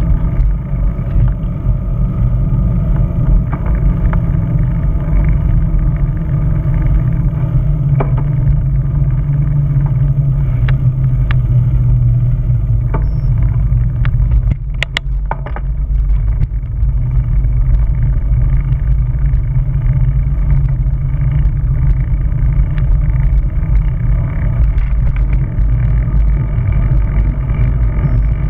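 Steady wind buffeting and tyre rumble picked up by a camera riding on a moving bicycle, with a few scattered clicks and a sharper knock about fifteen seconds in.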